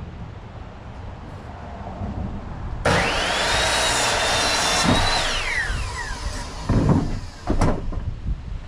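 A power tool starts abruptly and runs at speed for about two seconds, its motor whine rising quickly, then it is released and the whine falls as the tool spins down. A few sharp knocks follow near the end.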